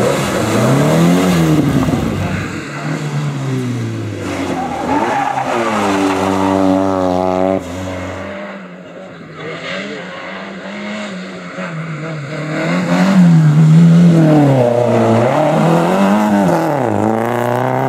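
Rally cars accelerating hard through a hairpin, one after another, their engines rising and falling in pitch with each rev and gear change. Near the middle the sound drops suddenly and turns duller, then grows loud again as the next car revs through the bend.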